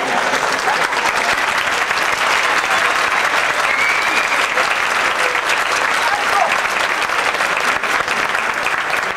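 An audience clapping steadily, with a few voices among the clapping.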